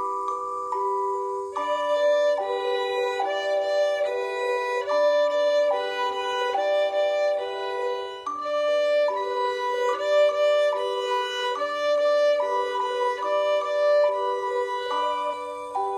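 Violin bowing a simple two-note tune on the A string, alternating D and B (third and first finger), over a backing track with bell-like mallet sounds. The violin comes in about a second and a half in.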